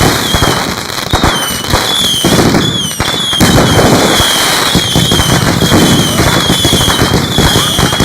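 Consumer fireworks going off: a loud, continuous rapid crackling and popping with no break.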